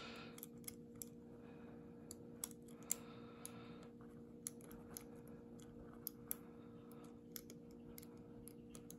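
Faint, irregular small clicks of a lock pick and tension wrench working the pins of a 5-pin Lockwood padlock during single-pin picking, over a steady low hum.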